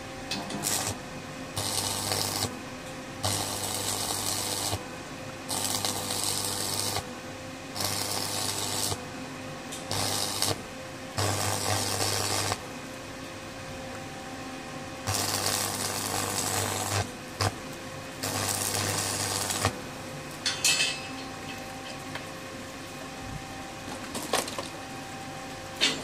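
Electric arc welding in a series of short welds: about eight bursts of hissing with a low buzz, each one to two seconds long, starting and stopping abruptly with pauses between. A few short clicks come near the end.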